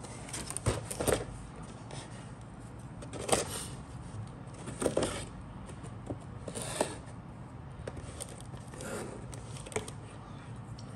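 A cardboard model-kit box being handled: a handful of short cardboard scrapes and rustles, spread out and separate, over a low steady hum.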